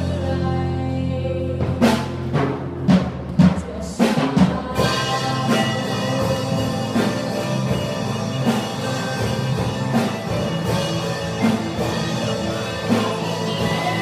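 Live rock band with electric guitars and drums: a held chord rings for about two seconds, a run of loud drum hits follows, and then the full band settles into a steady beat.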